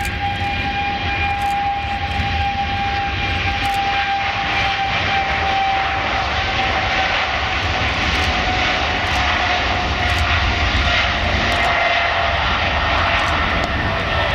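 Boeing 777-200ER's twin jet engines running loud and steady as the airliner rolls along the runway, a whine in the noise slowly falling in pitch.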